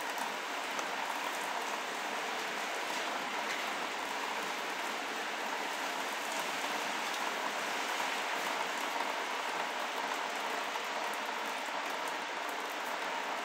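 Steady rain falling, an even hiss that keeps up without a break.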